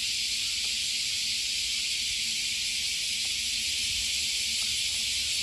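Many bees buzzing around a flowering tree, a faint low hum of wings, under a loud, steady high-pitched hiss.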